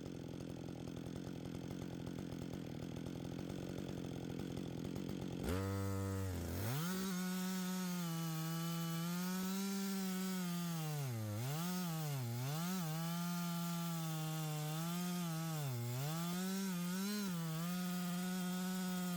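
Chainsaw in a chainsaw mill, running steadily, then revving up sharply about five seconds in and held at high speed as it rips lengthwise through a log, its pitch dipping several times as the chain bogs under load in the cut.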